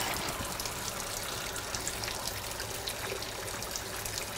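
Kitchen faucet running steadily into the sink while gloved hands rinse things under the stream, with a few faint small clicks.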